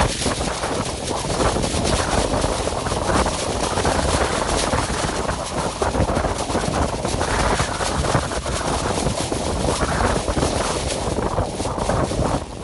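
Dense rushing noise, like strong wind, that swells and eases every second or so, with no clear tones.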